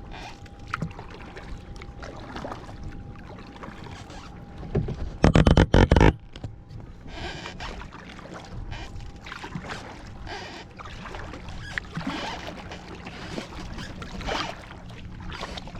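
Paddling a tandem kayak: paddle strokes washing through the water, with a short run of loud thumps about five seconds in.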